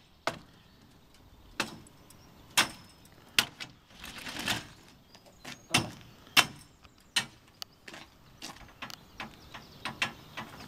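A string of sharp, irregular knocks and clacks, roughly one a second, from the pigeon crates and metal rack of a pigeon transport lorry being handled and prodded with a pole, with a longer rattling clatter about four and a half seconds in.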